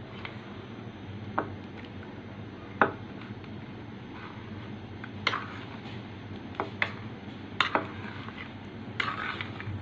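Metal spoon stirring custard powder into milk in a glass bowl, clinking sharply against the bowl's side now and then, over a steady low hiss.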